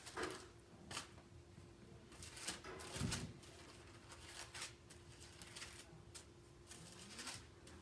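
Faint, irregular paper rustling, Bible pages being leafed through to find a verse, with a dozen or so short rustles, the loudest about three seconds in, over a faint steady hum.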